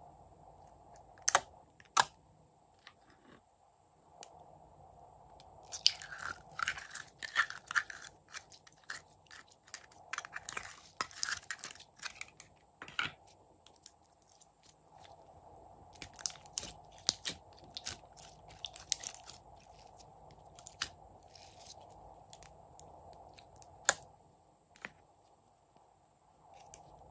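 Glitter slime squeezed and pulled by hand, giving clusters of sticky crackling, popping clicks, with a few single sharp clicks in between.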